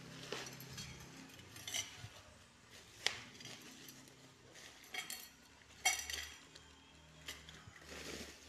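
Hard goods being handled in styrofoam packing: about four sharp clinks, the one near 6 s ringing briefly, over soft handling and rubbing noise.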